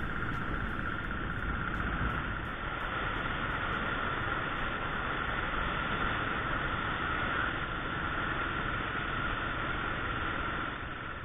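Royal Enfield single-cylinder motorcycle ridden at road speed: steady engine and wind noise with a constant hum running over it.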